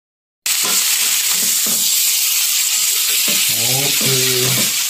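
Perkasam (fermented fish) frying in a wok, a loud steady sizzle, stirred with a metal spatula. It starts abruptly after a moment of silence.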